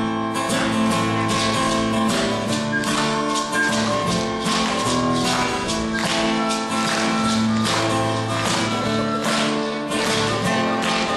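Instrumental band intro to a pop-rock song with a steady beat.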